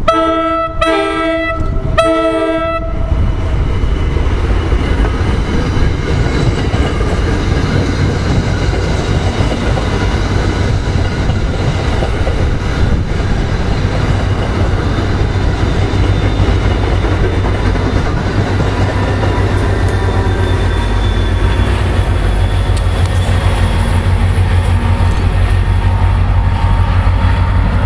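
NJ Transit commuter train sounding two horn blasts, the second shorter, then running past with steady wheel and rail noise and clattering. Later a diesel locomotive's engine drones as a train nears.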